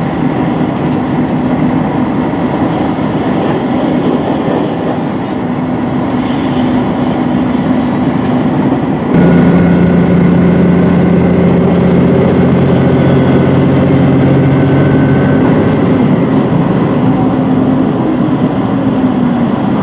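Interior running noise of a HOT7000 series diesel railcar at speed, a steady rumble. About nine seconds in it turns suddenly louder, with a steady droning note like the diesel engine coming under power. Near the end some of the pitches fall away.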